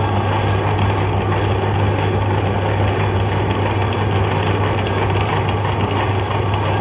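Electric meat grinder running steadily with a constant low motor hum.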